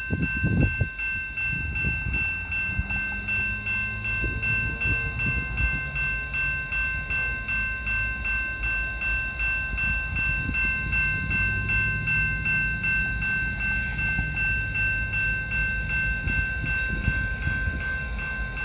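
Railroad crossing bell ringing steadily, struck about two to three times a second, over the low rumble of diesel freight locomotives.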